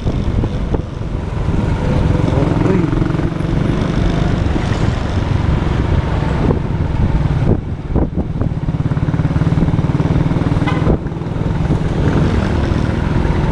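Motorcycle engine running under way in traffic, a steady low rumble mixed with road and wind noise, dipping briefly twice.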